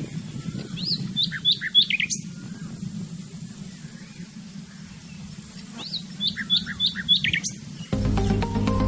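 A songbird singing two short phrases about five seconds apart, each a quick run of high chirped notes, over a steady low rumble. Music starts abruptly near the end.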